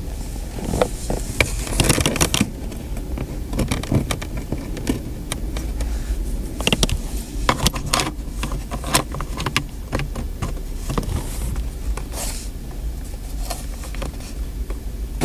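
Hands working inside a car's interior: scattered clicks, taps and scraping of plastic trim and wiring while a stereo microphone wire is routed, over a low steady hum.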